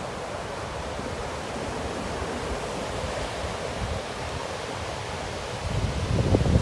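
Ocean surf breaking and washing up a sandy beach, a steady rushing hiss. Near the end it grows louder, with a low rumble.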